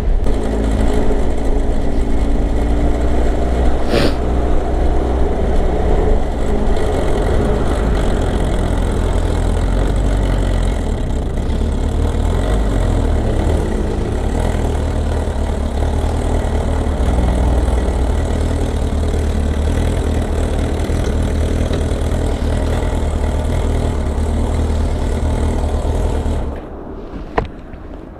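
Kawasaki ZR-7S's air-cooled inline-four engine running with an abnormal mechanical noise, which the owner suspects comes from a faulty automatic cam chain tensioner. The sound drops away sharply near the end, followed by a single click.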